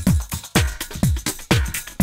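Electronic dance music with a steady kick drum, about two beats a second, and hi-hats ticking between the beats.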